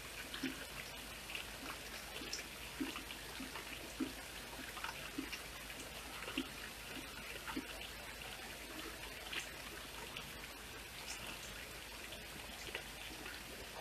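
Rain falling steadily, an even hiss with individual drops plinking louder at irregular moments.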